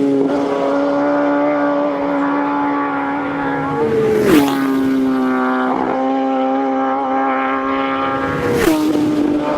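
Racing motorcycles passing at full throttle one after another. Each holds a steady high engine note that drops sharply in pitch with a brief rush of noise as it goes by, twice, about four and nearly nine seconds in, the next bike's note rising over the fading one between passes.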